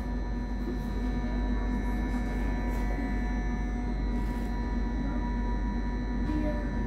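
Subway car standing at a platform with its doors closed, its electrical equipment giving a steady hum with several high whining tones.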